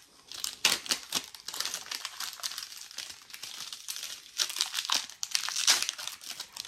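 A roll of sticky-back Velcro hook-and-loop tape being unrolled and handled, giving irregular crinkling and scratchy rasps, loudest about a second in and again near the end.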